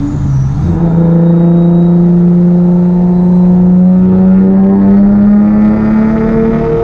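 Supercharged Infiniti G35's 3.5-litre V6 pulling under load, its pitch climbing slowly and steadily after a brief break near the start, with a faint high whine from the Vortech centrifugal supercharger rising along with it.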